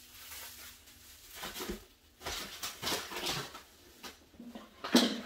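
Plastic bags rustling and packed goods being handled and set into a cardboard box, in irregular short bursts, with the loudest rustle or knock about five seconds in.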